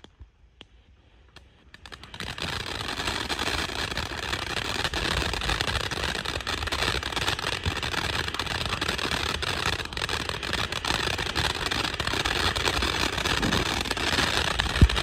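Near silence for about two seconds, then a ground fountain firework hissing and crackling steadily as it sprays sparks, with one short thump near the end.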